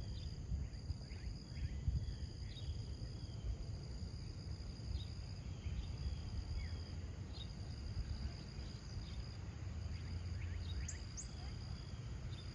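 Outdoor summer ambience: a steady high insect drone, with faint short bird chirps now and then over a constant low rumble.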